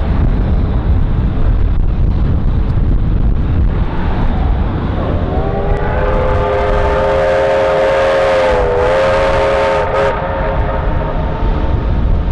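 Steam locomotive whistle sounding one long blast, starting about five seconds in and lasting about five seconds, with a brief dip in pitch near the end. A steady low rumble runs underneath.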